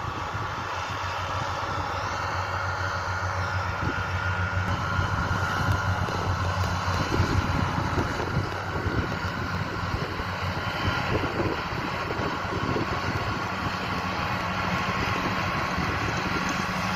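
Fendt 720 Vario tractor's six-cylinder diesel engine running steadily under load while its front and trailed John Deere disc mowers cut grass, a continuous drone that grows gradually louder as the tractor approaches. Some wind noise on the microphone.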